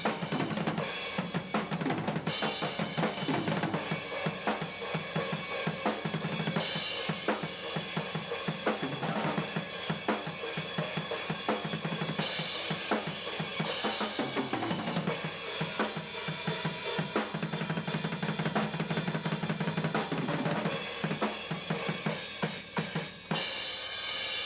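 Rock drum kit played in a busy, continuous pattern: kick drum, snare and cymbal hits in quick succession, with cymbal wash ringing over them at times.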